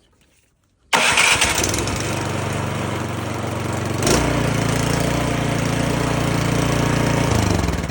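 Craftsman snowblower's 179cc small engine starts suddenly about a second in and runs steadily, its freshly cleaned carburetor having cured a no-start. Its note changes about four seconds in, and it slows down and fades near the end.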